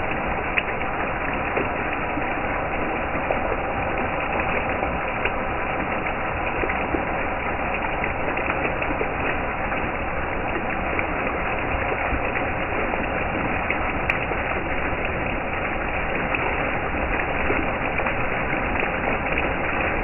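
Water jets from a fountain of Korean earthenware crocks pouring into the open mouths of other crocks and splashing onto wet stone: a steady splashing and gurgling of falling water with small spatters through it.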